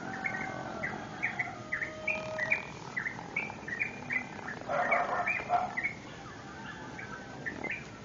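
Small birds chirping in a steady run of short, quick calls at dawn, with a rooster crowing once for about a second, about five seconds in.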